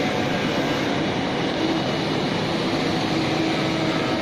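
Steady hum and hiss of machinery running, with a faint held tone in the middle.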